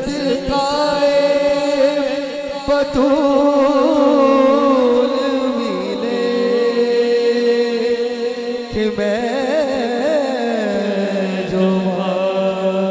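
A man's voice singing a long, wordless, wavering melodic line in naat style, over a steady lower held note.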